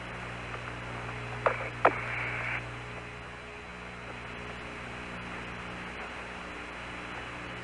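Steady hum and hiss of the Apollo 15 air-to-ground radio channel with no one talking. About a second and a half in there are two clicks and a brief burst of static.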